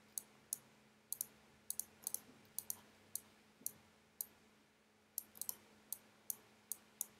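Computer mouse buttons clicking: sharp single and quick double clicks at irregular intervals, with a pause of about a second near the middle. A faint steady low hum runs underneath.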